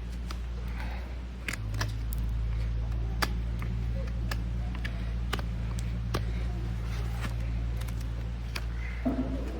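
Hoof knife paring the sole of a horse's hoof: irregular short, sharp clicks and scrapes, some second or so apart, over a steady low hum.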